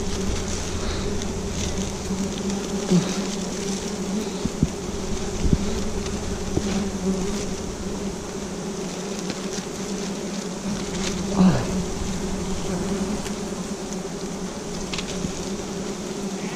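Wild honeybees buzzing steadily in a swarm around their opened nest, a constant low hum, with a few short knocks as the comb is handled.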